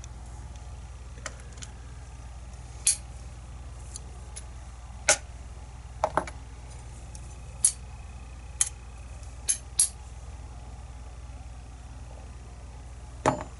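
Small metallic clicks and taps of lock pins and tools against a disassembled pin-tumbler lock cylinder, about a dozen at irregular intervals, over a steady low hum.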